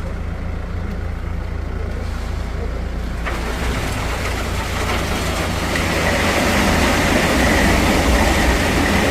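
A heavy engine running steadily with a deep, constant hum. From about three seconds in a rush of site noise builds over it and grows gradually louder.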